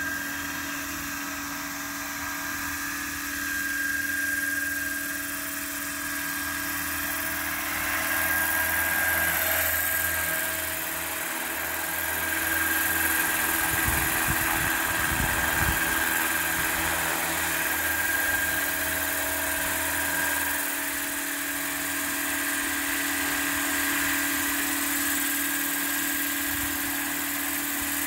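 Radio-controlled scale Bell 429 helicopter with symmetrical-airfoil main rotor blades in slow flight and hover: a steady whine over the drone of the rotor. It grows louder as the helicopter comes close, about halfway through.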